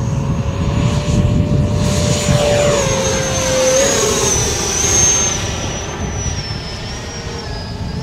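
E-flite Viper electric ducted-fan jet model at full throttle on takeoff and climb-out: a high, steady fan whine over a rushing noise. It grows loudest about five seconds in, then fades as the jet climbs away.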